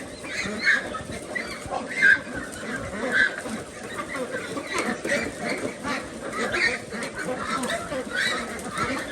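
A flock of farmed ducks calling, with many short quacks and honks overlapping in a steady din.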